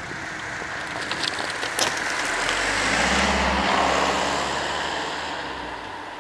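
A car passes on an asphalt road: engine hum and tyre noise swell to a peak around the middle and fade as it drives away. A few sharp clicks come about one and two seconds in.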